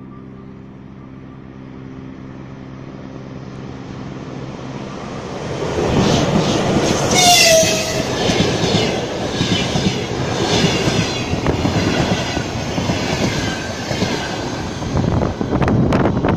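A ChS7 electric locomotive passing at speed with its passenger train. A steady hum grows louder as it approaches, then a short horn note drops in pitch as the locomotive goes by. The carriages follow with loud rolling noise and a rhythmic clickety-clack of wheels over the rail joints.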